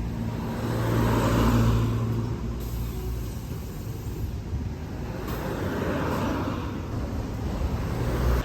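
Road traffic over a steady low rumble, with two cars passing one after another, each swelling up and fading away.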